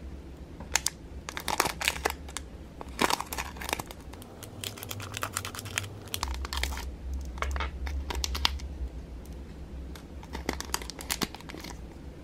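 Thin clear plastic bag crinkling and crackling in several spells as it is handled and opened, over a steady low hum.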